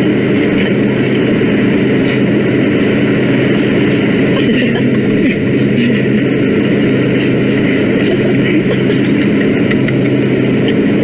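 Steady drone of a business jet's engines and airflow, heard inside the cabin: an even rushing noise with a constant low hum that does not change.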